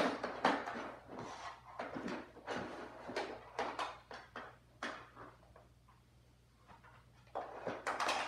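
Irregular knocks, taps and scrapes of small objects being handled on a hard floor. They thin out for a second or two about two-thirds of the way through, then cluster again near the end.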